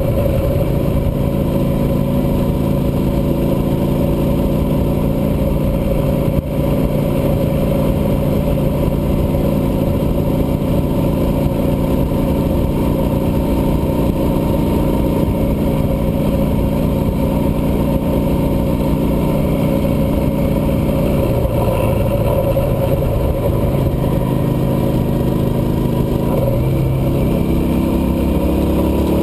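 Cruiser motorcycle engine running steadily while riding on the highway, with a low rumbling noise underneath. The engine note drops about three-quarters of the way through and shifts again near the end.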